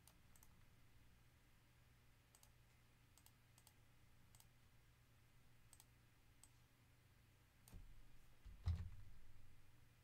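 Faint, scattered computer mouse clicks at irregular spacing. Near the end comes a low rustle and one dull thump, the loudest sound here.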